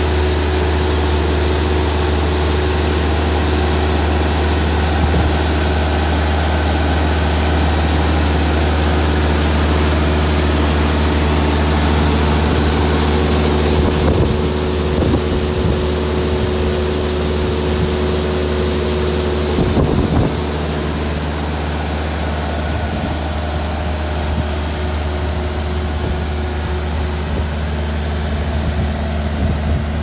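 Bobcat S450 skid-steer loader's engine running steadily while its rotary broom sweeper attachment spins, scrubbing loose dust and grit off a gravel road base. A couple of brief knocks sound about halfway through.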